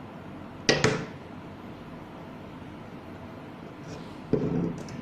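Two sharp clicks about a second in, then a short knocking clatter near the end, from hands connecting wires to an electric door lock.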